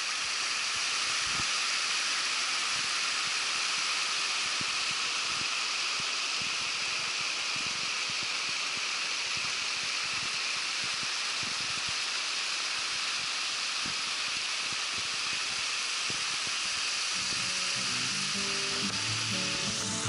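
Steady rush of a small mountain stream cascading over rocks, an even hiss with no breaks. Music fades in quietly near the end.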